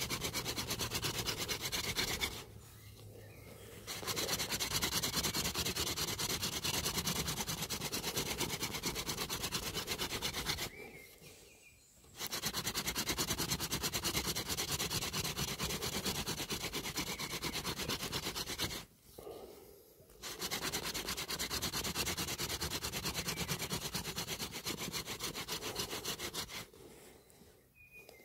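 Hazel-wood hand-drill spindle spun back and forth by hand in a dry bay-laurel hearth board: a dry, fast grinding rub of wood on wood, broken by three short pauses and stopping near the end. The friction is grinding out the dark hot dust that builds up into an ember.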